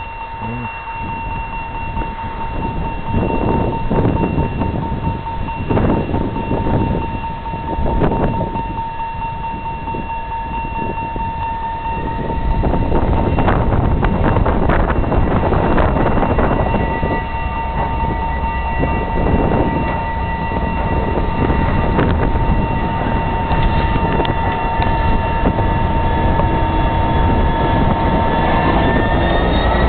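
Class 66 diesel locomotive's two-stroke V12 engine running as the locomotive rolls slowly up and passes close by. It grows louder about halfway through, with a heavy low rumble as the bogies pass and tones rising near the end. A steady high tone sounds under it throughout.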